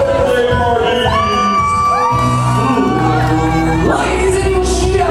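Recorded music with singing, played loud, with children shouting and whooping over it.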